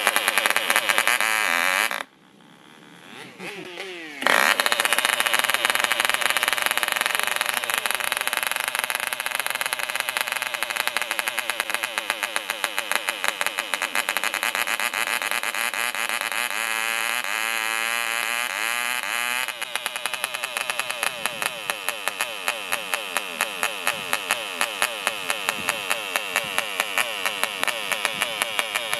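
Small 1.5 cc Oliver diesel model engine of a tether car running at high revs on the starting bench. It cuts out about two seconds in, picks up again with a rising whine about four seconds in, and then runs on steadily. Its pitch shifts and it gets a little quieter about two-thirds of the way through.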